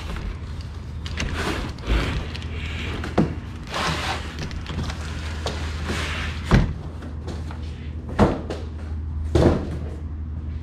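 A cardboard box holding a new car AC condenser being handled: the cardboard lid and flaps rustle and scrape, with about five dull knocks as the box and the part inside are shifted.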